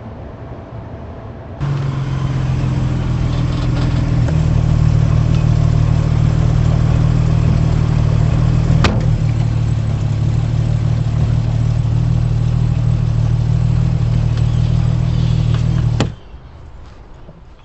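A steady engine drone with a strong low hum. It starts suddenly about two seconds in, runs on with one sharp click about halfway, and cuts off suddenly near the end.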